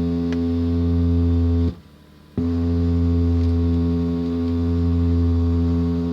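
A 2005 Toyota Camry's radio puts out a loud, steady, low-pitched hum through its speakers, an unwanted fault noise. It cuts off abruptly about two seconds in and comes back under a second later.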